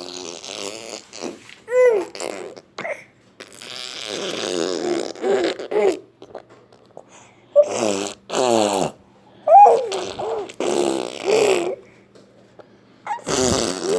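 A young child making funny vocal noises: several bursts of high-pitched babbling and squealing that slide up and down, with short pauses between.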